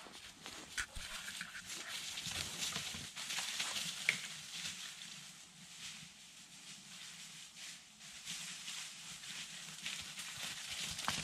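Footsteps crunching and rustling through dry pine needles and fallen leaves on a forest floor, an irregular crackle that swells and fades.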